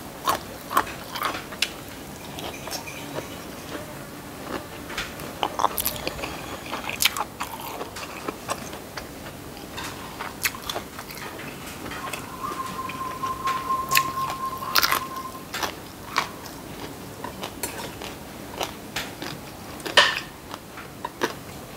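Close-up eating sounds: chewing and crunching of rice with shrimp-paste chili dip, fried fish and fresh vegetables, with many sharp mouth and spoon clicks. A faint steady high tone runs from about twelve to fifteen seconds in.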